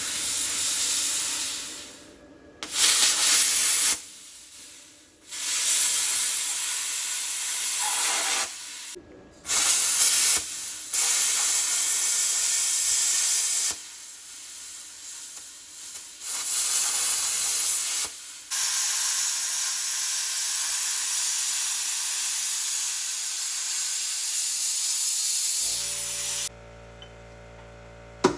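Plasma cutter cutting through the steel bolts of an excavator bucket's side cutter: a loud, harsh hiss of the arc and air jet, switched on and off in bursts of a few seconds with short pauses. Near the end the hiss stops and a steady hum takes over.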